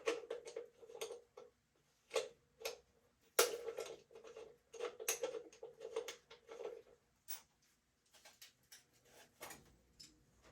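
Metal tools and motorcycle parts clinking and clicking irregularly as they are handled during disassembly, some clinks ringing briefly; the clinks thin out after about seven seconds.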